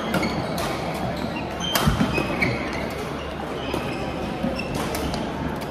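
Badminton rally: several sharp racket strikes on the shuttlecock, the loudest about two seconds in with a low thud of a footfall, and short shoe squeaks on the court floor, over a steady murmur of voices in a large hall.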